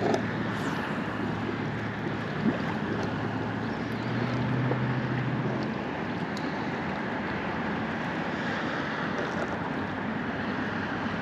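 Wind buffeting the microphone over open water, with a low motor hum from a boat that swells about four seconds in and fades out by about six seconds. A couple of light knocks come early.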